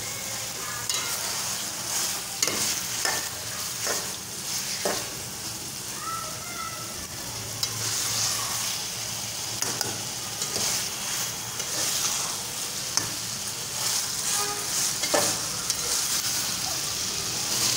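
Chicken mince sizzling in oil in a steel pot over high heat as it is fried (bhuna) for keema, while a spoon stirs and scrapes it, knocking against the pot at irregular moments.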